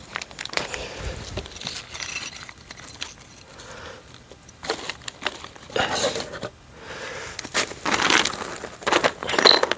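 Small metal mounting screws for a smart lock clinking and rattling as they are handled, with irregular clicks that are loudest near the end.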